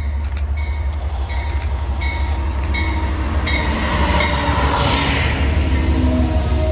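Amtrak Downeaster passenger train led by a GE P42DC diesel locomotive approaching and passing close by, its engine rumble and wheel noise growing louder to a peak as the locomotive goes past about four to five seconds in, then the passenger cars rolling by. A regular ringing clang sounds about every 0.7 seconds during the approach.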